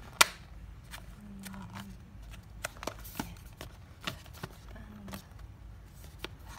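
Hands handling a cardboard smartphone box: scattered taps and clicks of fingers on the box, with one sharp knock just after the start, over a faint low hum.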